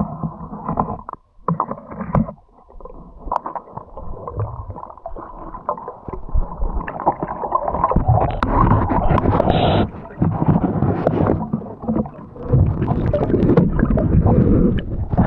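Muffled water sloshing and gurgling around the camera, irregular and getting louder about halfway through.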